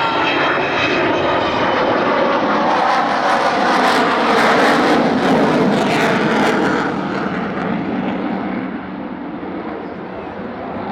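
Avro Vulcan bomber's four Rolls-Royce Olympus turbojets roaring past in a low fly-by: the jet noise builds to its loudest about four to six seconds in, then its high end fades away as the aircraft moves off.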